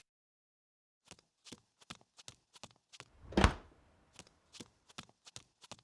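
Cartoon sound effects: a run of light, quick taps like small footsteps, with one louder swish about three and a half seconds in as the refrigerator door swings open.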